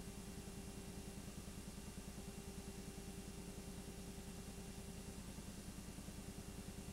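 Film projector running: a steady motor hum with a fast, even flutter. A fainter, higher hum drops out for about a second near the end.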